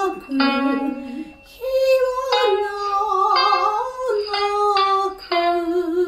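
Japanese traditional-style song: female voices singing long, wavering held notes over plucked shamisen notes.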